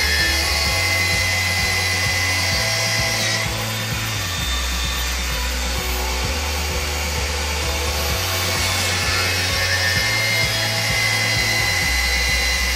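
Cordless drill spinning a dry diamond core bit as it grinds into ceramic tile: a continuous high-pitched gritty grinding with a whine, its tone shifting about three seconds in. Background music with a stepping bass line plays underneath.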